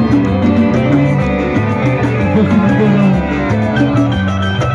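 Music with plucked guitar lines over a quick, steady beat.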